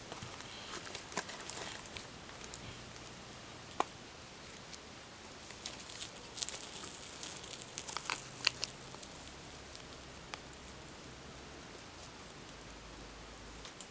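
Faint outdoor ambience with light rustling and a few scattered small clicks and taps, a sharp tick about four seconds in and a short cluster of taps with brief ringing around eight seconds in.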